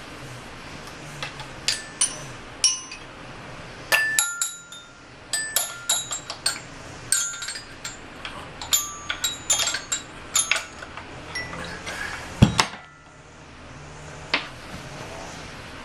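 Child's xylophone bars struck at random in an uneven, halting patter, each note ringing briefly. A single heavy thump comes about three-quarters of the way through.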